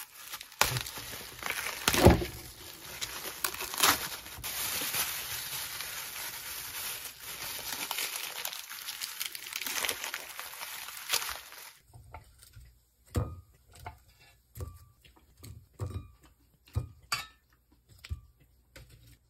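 Breakfast being prepared by hand: for about twelve seconds a steady hiss with a few sharp knocks, the loudest about two seconds in. It stops suddenly, and scattered light taps and clicks of utensils and food handling follow.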